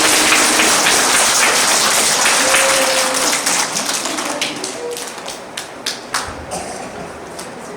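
Audience applauding, dense at first, then dying away over a few seconds to a handful of scattered claps.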